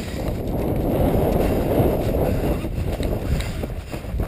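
Wind buffeting and rustling rumble on a body-worn camera microphone as the wearer runs, swelling toward the middle, with a few faint ticks.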